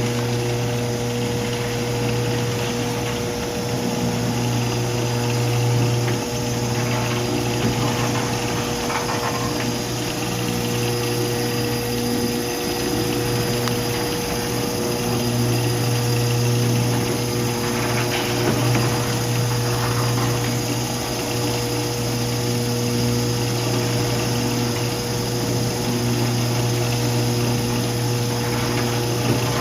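Lantech Q300 stretch wrapper running: its turntable and film carriage drive motors give a steady hum with a constant whine, and a second tone that cuts in and out every second or two.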